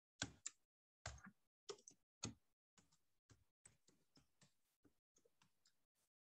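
Faint keystrokes on a computer keyboard as a password is typed: a string of separate clicks, about two or three a second, the first few louder than the rest.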